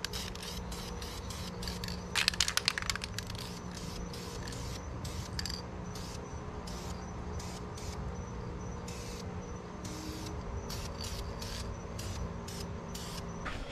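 Aerosol spray paint can sprayed in many short hissing bursts through a camouflage stencil, laying black paint onto a boat hull; a quick run of bursts comes about two seconds in.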